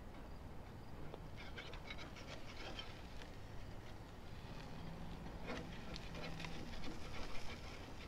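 Faint clinks and scrapes of a metal spatula and tongs on a portable grill's grate as catfish fillets are turned over.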